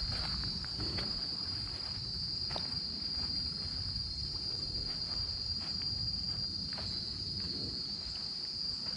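A steady, high-pitched drone of insects, with a few faint clicks over it.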